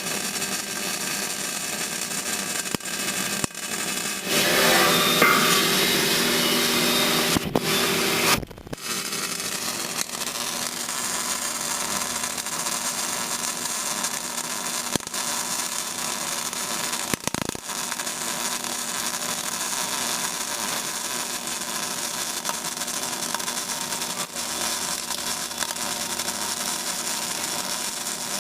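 CO2 semi-automatic (MIG/MAG) welding arc crackling steadily. It is louder for about four seconds from roughly four seconds in, then breaks off briefly and picks up again.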